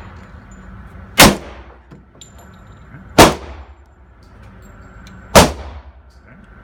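Three .45 ACP shots from a SIG P220 pistol, fired slowly about two seconds apart, each a sharp crack with a short echoing tail.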